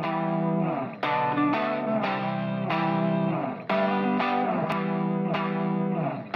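Background music led by a guitar playing picked notes in short repeated phrases, with a brief break between phrases every two to three seconds.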